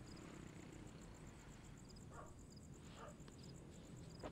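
Near silence of a night outdoors, with faint crickets chirping in short double chirps every second or so.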